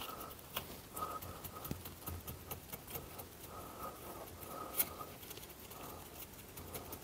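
Fingers pressing a fibreglass rope gasket into glue in a wood stove door's groove: faint light taps, rubbing and small squeaks, with one sharper click about five seconds in.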